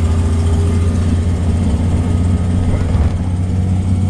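Interior drone of a 2004 Orion VII CNG transit bus under way: a steady, loud low engine and drivetrain hum with road noise, the higher hiss falling away about three seconds in.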